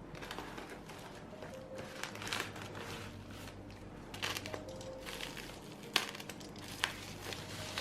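Packaging crinkling and rustling as a parcel is handled and opened, with two sharp clicks near the end, over soft background music.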